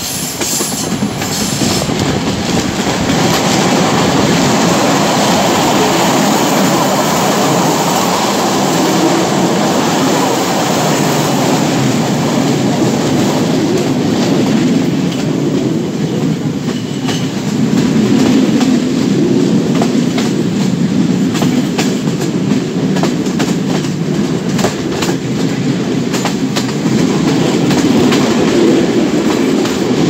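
Sri Lanka Railways Class S14 diesel multiple unit running at speed, heard from the side of the moving train: a steady rumble of wheels on rails with repeated clicks over the rail joints, which come more often in the second half.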